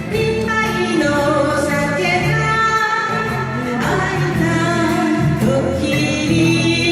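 A woman singing a Japanese kayōkyoku song over instrumental accompaniment.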